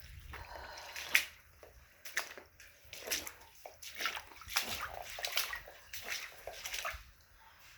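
Shallow indoor floodwater sloshing and splashing in irregular bursts, as feet wade through it.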